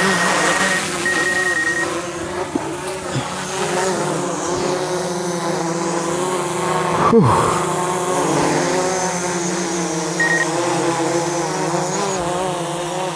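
DJI Mavic Pro quadcopter's propellers whining as it lifts off and hovers close by, the pitch wavering as the motors fight strong gusty wind. Short electronic beeps in the first two seconds and once more later, with a quick falling swoop and a sharp knock about seven seconds in.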